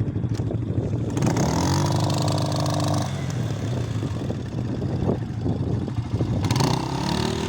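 ATV engine running and revving: its pitch climbs about a second in, holds, and drops away at about three seconds, then climbs again near the end.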